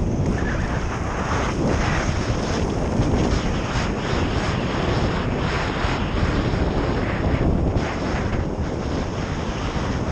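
Wind rushing over a helmet-mounted action camera's microphone while skiing downhill, a steady roar, with skis hissing and scraping over packed snow in surges as the skier turns.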